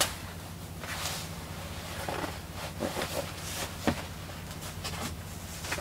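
Faint rustling of a cotton obi and kimono sleeves being handled, with a few light taps and shuffling steps, over a steady low hum.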